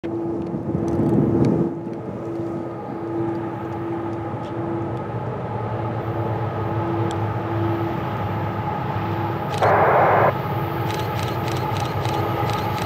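Approaching freight train led by GE AC4400CW-series diesel locomotives: a steady distant engine rumble with a few steady tones over it. About ten seconds in there is a loud burst lasting under a second, followed by a run of quick clicks.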